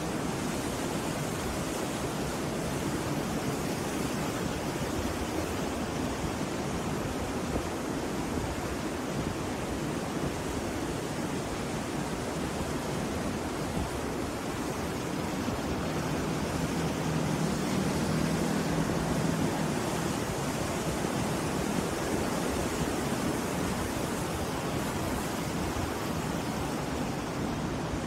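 Rough sea surf breaking on a beach: a steady, unbroken wash of wave noise that swells a little about two-thirds of the way through.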